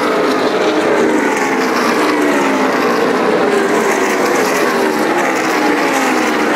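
NASCAR Sprint Cup stock cars' V8 engines running at speed in practice laps, a loud steady drone whose pitch keeps sliding down as cars go past.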